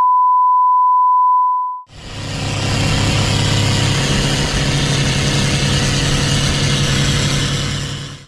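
A steady beep for about two seconds, then a long-tail boat's stern-mounted engine running hard with water rushing as the boat speeds along, fading out near the end.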